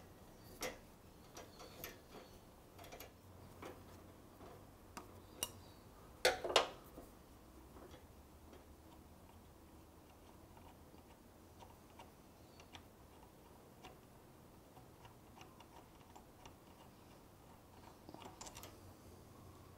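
Faint, scattered clicks and metallic taps from a tool and fingers working the pad-retaining bolt out of a Brembo four-piston front brake caliper. A louder double clack comes a little after six seconds, then only sparse ticks, with a few more clicks near the end.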